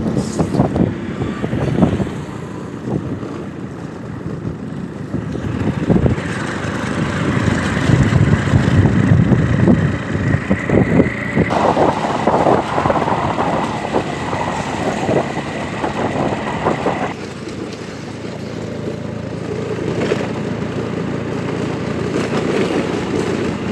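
Road traffic: vehicle engines and tyres running along a road, with a thin, steady high whine from about six seconds in until about seventeen seconds.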